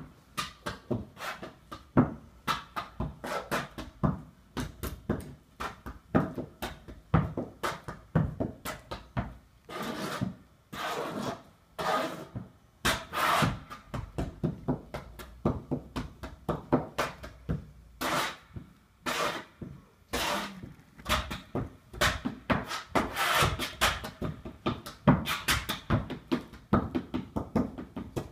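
Flat-footing percussive dance: hard-soled shoes tapping and stamping on a wooden dance board in quick, shifting rhythms. Mixed in are a few longer scuffing strokes.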